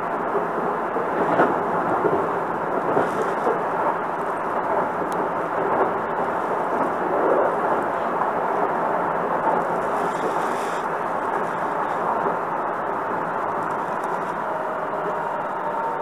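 Hankyu Kobe Line train standing at a station platform with its doors open: a steady hum and hiss from the stopped train and the platform, with two faint steady tones coming in near the end.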